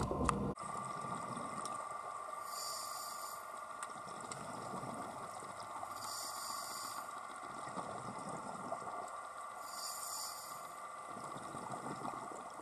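Scuba diver breathing through a regulator, heard from an underwater camera housing. Three times, about every four seconds, comes a high hiss of under a second as the diver inhales, and between hisses the lower rumble of exhaled bubbles. It opens with a brief knock before the underwater sound takes over.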